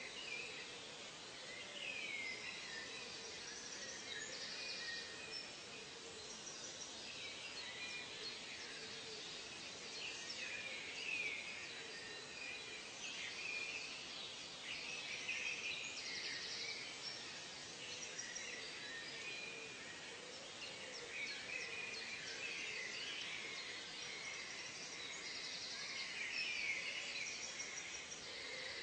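Forest ambience of many small birds chirping and whistling, overlapping and continuous. A short, high buzzing trill recurs about every ten seconds over a faint steady hiss.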